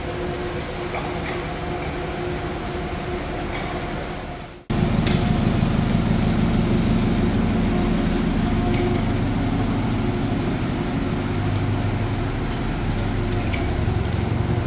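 Steady hum and rumble of a moving vehicle, with a faint steady whine over it. An abrupt cut about five seconds in, after which the low rumble is louder.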